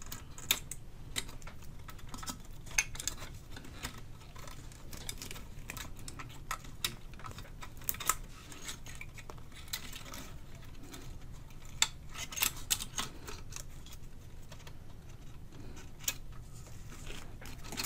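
Scattered small clicks, ticks and light scrapes as an old laced wiring loom is worked by hand out of a Tasma 1002 valve radio's steel chassis, its stiff wires and taped tags catching on components and metal. A faint steady low hum runs underneath.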